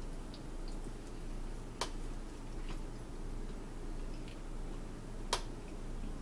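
Quiet eating sounds, chewing and small mouth ticks, with two sharp clicks about two seconds and five seconds in, over a steady low hum.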